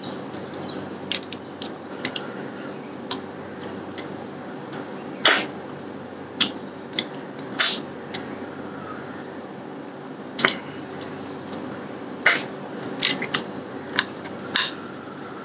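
Close-up eating sounds: a person chewing mouthfuls of rice and snail curry eaten by hand, with about fifteen wet lip and tongue smacks and clicks at irregular intervals, a few of them much louder.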